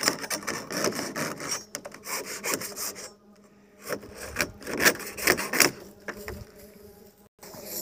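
Pliers working at the plastic binding cord on a coil of HDPE pipe: irregular scraping and rubbing strokes, with a pause about three seconds in and a louder run of strokes around five seconds in.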